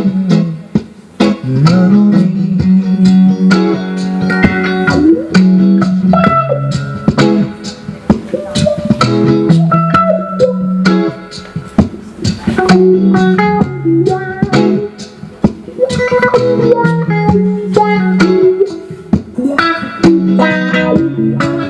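Background music led by plucked guitar over a bass guitar line, a continuous run of short picked notes.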